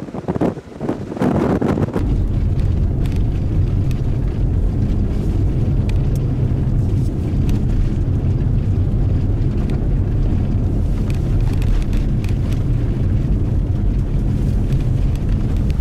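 Wind buffets the microphone for the first couple of seconds. Then a vehicle engine's steady low drone takes over, loud and unchanging.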